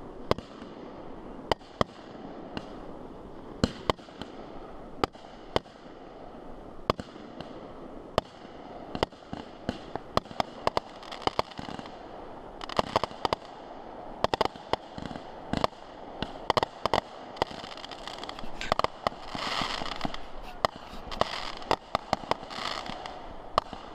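Aerial fireworks going off: many sharp bangs at irregular spacing throughout, with denser runs of crackling bursts around the middle and again near the end.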